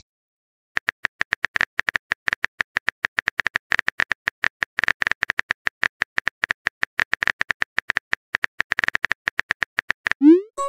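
Texting-app keyboard typing sound effect: a rapid run of short, high ticks, several a second, as a message is typed. It starts just under a second in and stops shortly before a rising tone near the end.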